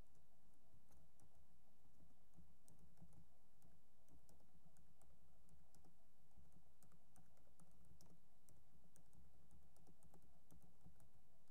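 Faint typing on a computer keyboard: quick, irregular key clicks over a low steady hum.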